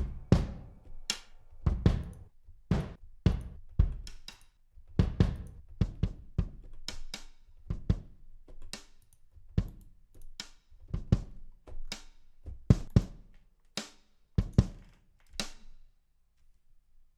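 Drum-kit samples played in a beat-making program: kick, snare and hi-hat hits in an uneven run of separate strikes, stopping about sixteen seconds in.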